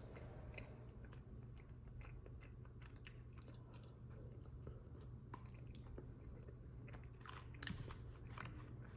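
Faint close-up chewing of a forkful of chicken enchilada bake with its thick corn tortilla: soft wet mouth clicks, a few sharper ones near the end, over a low steady hum.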